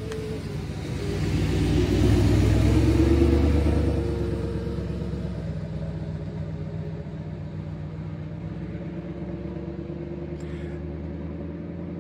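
An engine running with a steady low hum. It grows louder about a second in, for a couple of seconds, then settles back to a steady run.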